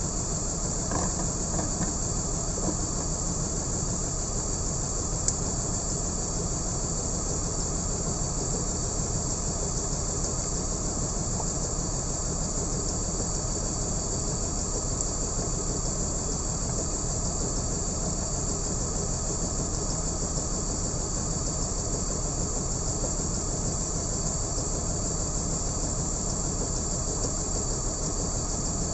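BMW M54B30 3.0-litre straight-six idling steadily, with a steady high hiss over the low engine rumble. The engine has a misfire and a bad idle that the owner suspects comes from one of the ignition coils.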